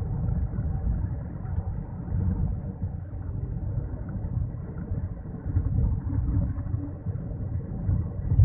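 Low, steady rumble of a vehicle moving along the road.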